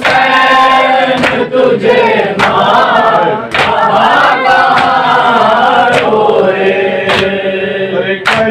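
Group of male mourners chanting a Urdu noha refrain together in unison, with sharp beats about once a second from the mourners' chest-beating (matam).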